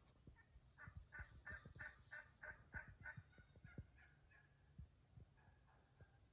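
Wild turkey calling faintly: a run of about a dozen evenly spaced notes, about three a second, fading out after some four seconds. Soft low thumps sound under it.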